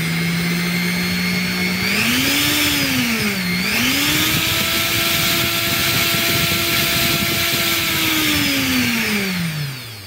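Electric motor spinning under a TRIAC dimmer, its speed set by the potentiometer being turned. The whine climbs about two seconds in, dips briefly, holds higher and steady, then winds down near the end.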